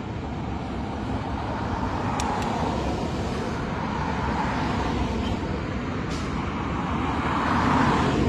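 Road traffic: a car drives past close by, its tyre and engine noise swelling to a peak near the end, over a steady rumble from a convoy of utility trucks approaching on the road.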